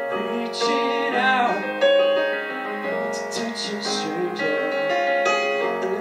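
Live band music: a Nord Electro stage keyboard playing sustained electric-piano chords, with a male voice singing in short phrases over it.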